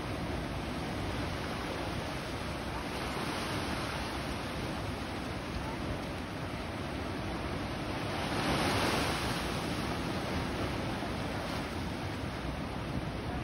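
Ocean surf rushing and breaking against a rocky shore, a steady wash with one louder wave surge about eight seconds in.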